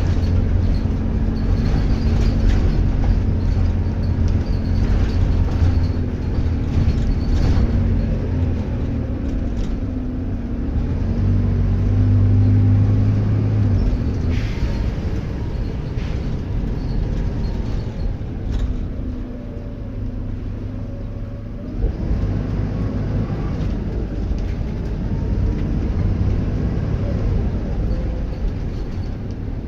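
Diesel bus engine running under way, its note rising and falling with load and gears, with a faint turbocharger whistle over it and a single knock about two-thirds of the way through.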